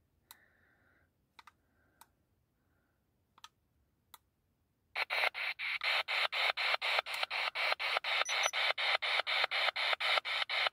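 A few faint clicks, then about five seconds in a ghost-hunting spirit box starts sweeping through radio stations: static chopped into about five short bursts a second.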